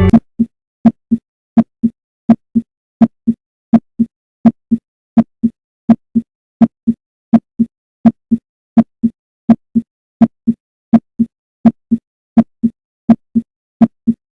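Heartbeat heard through a stethoscope: the first and second heart sounds, a lub-dub, repeating evenly at about 80 beats a minute. Each beat is a pair of short low thumps with clean silence between the pairs.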